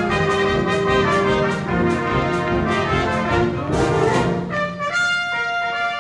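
Trumpets and other brass playing together in held, overlapping notes. A short noisy swell comes about four seconds in, and then the low brass drops out, leaving only the higher trumpet notes sounding.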